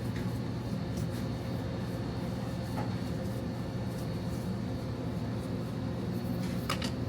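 Steady low machine hum of restaurant kitchen equipment, with a few faint light clicks and two short sharp ticks near the end.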